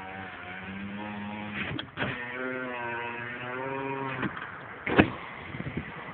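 2007 Toyota Camry power window motor running twice, a whine of about a second and a half and then one of about two seconds, each ending with a click. A sharp knock follows about five seconds in.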